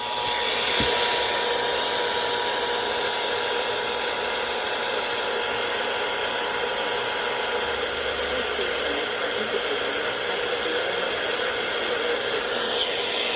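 Radio receiver static, a steady hiss with faint steady tones underneath: an Emergency Alert System test coming in ahead of its spoken message, with the alert tone weak under the noise. The higher tone fades out about halfway through.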